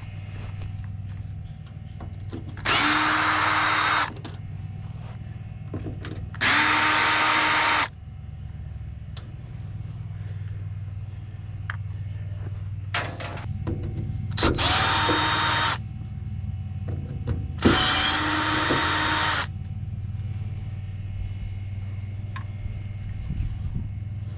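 Craftsman cordless drill-driver with a Phillips bit running four times, each run lasting about a second and a half at a steady pitch, as it backs screws out of an appliance's sheet-metal back panel.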